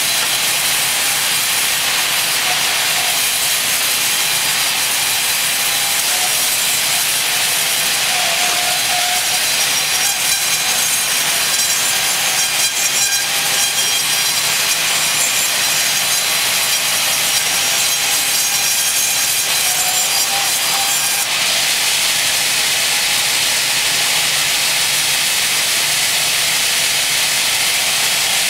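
Large band saw resawing 8-inch-wide walnut planks, the blade cutting through the wood with a steady, loud hiss. About 21 seconds in the cutting stops and the saw runs on with a smoother, even hiss.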